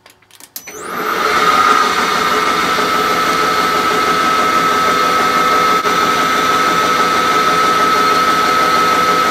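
Hafco Metalmaster AL960B metal lathe spinning up on its VFD-driven three-phase motor, starting about half a second in and rising over about a second to a steady run with a high whine on top. The spindle is on the fast pulley at the VFD's low preset, turning about 370 rpm.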